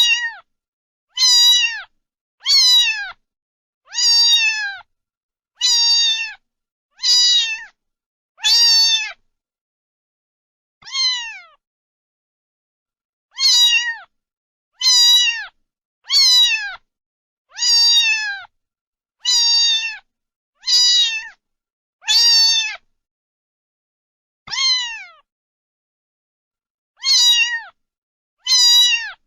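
A cat meowing over and over, about eighteen short high meows, each falling in pitch. They come every second or two, with a couple of longer pauses.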